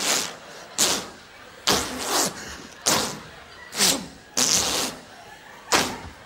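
A man making rhythmic beatbox-style mouth noises, a clumsy attempt at a rap beat: a sharp hissing spit with a short falling grunt, repeated about once a second.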